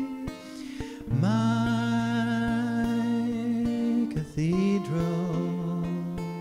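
Slow gospel song accompaniment between sung lines: acoustic guitar picking in a steady rhythm, under long held notes, the first from about a second in and a lower one near the end.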